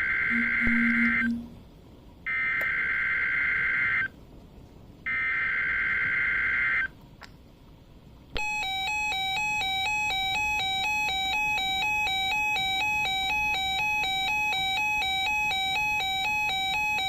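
Emergency Alert System alert opening: three bursts of the digital SAME header, each just under two seconds with short gaps between them. After a pause of about a second and a half comes the steady electronic attention tone, with many overtones, for about nine seconds. Together they signal that an emergency message, here a tornado watch, follows.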